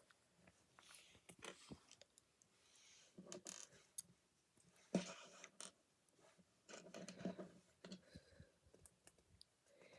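Faint, scattered clicks and rustles of small plastic Lego pieces being handled and set down on a surface, with a couple of sharper clicks about four and five seconds in.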